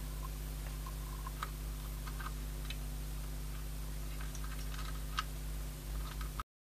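Faint, irregular small ticks and clicks of tweezers handling a tiny surface-mount chip on a circuit board, over a steady electrical hum. The sound cuts off abruptly near the end.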